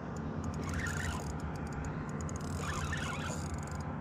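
Fishing reel being cranked as a hooked fish is pulled in against the tide, with short bursts of reel noise about a second in and again near three seconds. Under it runs a steady low rush, with scattered faint ticks.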